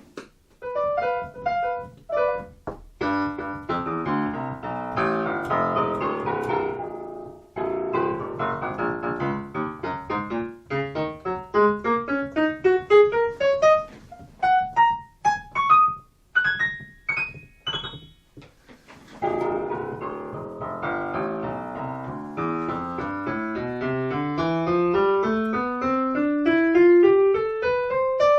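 Roland FP-8 digital piano being played to test its keys after a sticking-key repair: a few chords, then quick scale runs sweeping up and down the keyboard, ending in a long climbing run.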